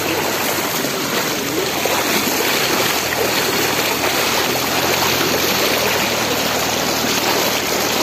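Floodwater flowing across a road, a steady loud rush of moving water.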